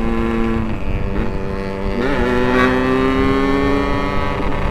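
Yamaha RX-King's two-stroke single-cylinder engine running under way with the bike. Its note holds steady, drops about a second in, and from about two seconds in climbs slowly as the revs build again.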